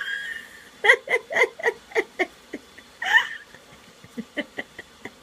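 High-pitched laughter: a quick run of short "ha" pulses about a second in, a longer laugh about three seconds in, then a few softer, shorter sounds.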